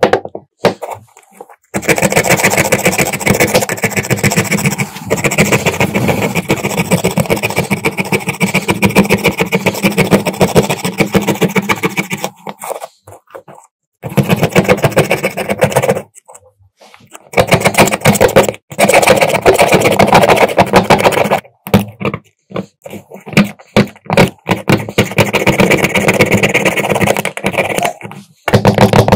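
A small power tool working against a metal part in long runs of several seconds, with a rapid chattering scrape, stopping abruptly and starting again several times.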